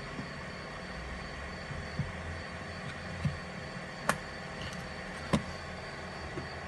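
Four short sharp knocks or clicks, unevenly spaced about a second apart, over a steady background hum and hiss.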